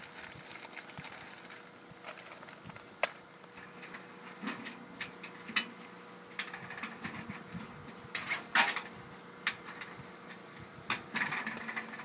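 Nylon zip ties being pulled tight around solar cables against an aluminium mounting rail: scattered clicks and short ratcheting rasps, the loudest a brief rasp about two thirds of the way through, amid handling of cable and rail.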